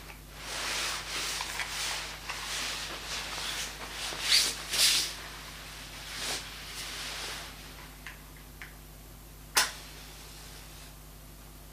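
Nylon jacket fabric rustling and rubbing in uneven spells, loudest about four to five seconds in, then dying away; a single sharp click comes near the end.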